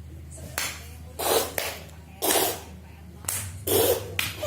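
Sembur treatment: chewed herbal medicine sprayed from the mouth onto a patient's body in short breathy bursts, about five of them roughly a second apart.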